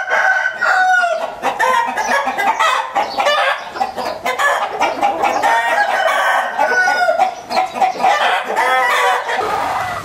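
Bamboo bantam roosters crowing and chickens clucking, many calls overlapping throughout, with a long held crow right at the start.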